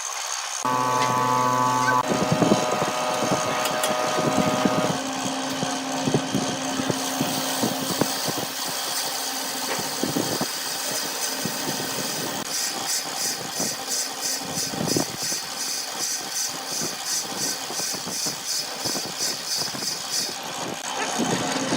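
Woodworking machine running with a steady motor hum, and tools cutting wood. From about halfway through, a fast, even high ticking comes in.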